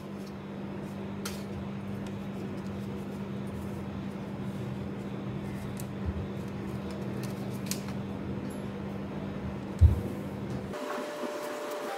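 A steady low background hum with a few faint light clicks, and one dull thump about ten seconds in. The hum cuts out for about the last second.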